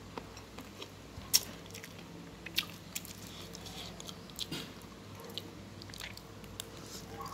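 Close-up chewing and biting on a mouthful of food, with scattered sharp crunches and clicks, the loudest about a second and a half in.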